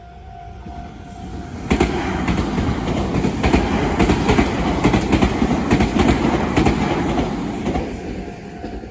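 Electric train passing over a railway level crossing, its wheels clattering rhythmically over the rail joints. It rises sharply about two seconds in and fades away near the end.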